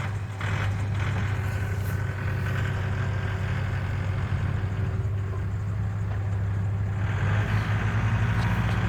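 Tractor engine running steadily with a low drone, a little louder from about seven seconds in.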